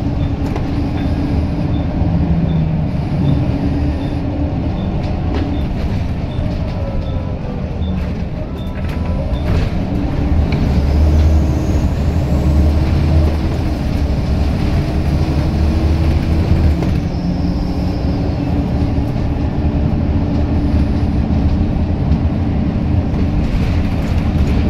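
Scania L94UB Wright Solar single-deck bus's diesel engine, heard from inside the saloon while the bus is driven hard. The engine note falls and climbs again about eight seconds in, as at a gear change, then runs louder.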